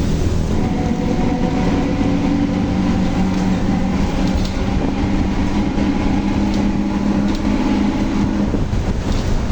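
Volkswagen 17-230 OD bus on the move: a steady drivetrain and road rumble with a loud, steady howl from the differential. The howl fades out near the end.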